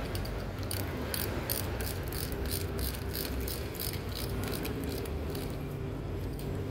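Hand ratchet wrench clicking in quick strokes, about four clicks a second, as it runs bolts into a Mitsubishi Pajero gearbox housing. The clicking stops about four and a half seconds in.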